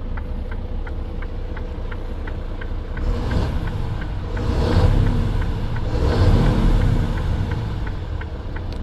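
Mercedes-Benz Antos truck's diesel engine idling, heard from inside the cab, with two swells in engine sound in the middle of the stretch as it is briefly revved. The hazard-light flasher ticks steadily, about two or three ticks a second.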